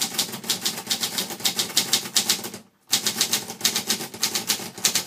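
Brother Deluxe 660-TR portable manual typewriter being typed on: a quick, uneven run of key strikes, several a second, with a short break about halfway.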